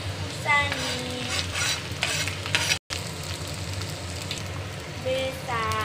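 Hot oil sizzling steadily in a small pan as green chillies are dropped in to fry with mashed boiled kabhro (fig) and potato. The sound cuts out for an instant about three seconds in.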